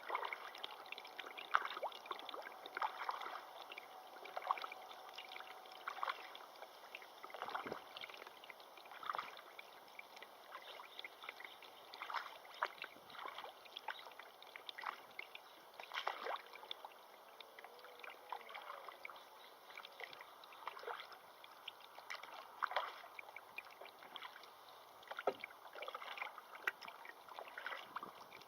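Moving river water splashing and gurgling, with many small irregular splashes over a steady rush.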